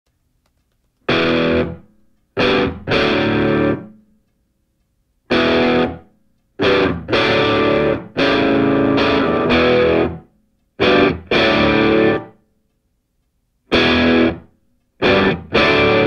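Background music: distorted electric guitar chords played in short stop-start phrases, with full silences between them.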